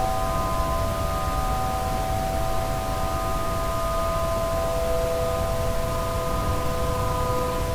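Several outdoor tornado warning sirens sounding at once on a test activation, heard as a chord of steady, held tones. A lower tone joins about five seconds in, over a low background rumble.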